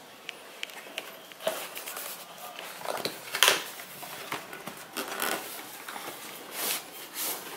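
Cardboard packaging being handled: rustling, scraping and irregular taps as a product box is worked out of its sleeve and its lid lifted, with the sharpest knock about three and a half seconds in.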